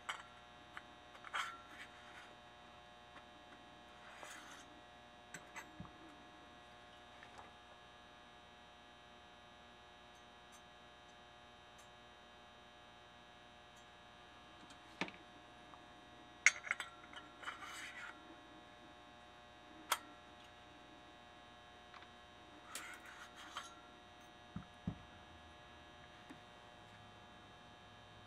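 Steady electrical hum under scattered light clicks and knocks of small metal moped engine parts (crankcase half, finned cylinder, piston) being picked up, turned and set down on a wooden workbench. The sharpest knocks come in a cluster a little past the middle.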